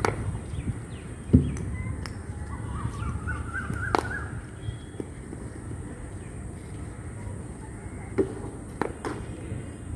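Crows cawing in a short run of calls, with a sharp crack of a cricket bat meeting the ball about four seconds in. A heavier thump just over a second in is the loudest sound, and there are a couple of lighter knocks near the end.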